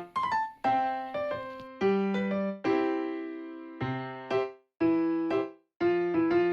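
Background music on a piano-like keyboard: short phrases of struck notes that ring and fade, with two brief pauses about four and a half and five and a half seconds in.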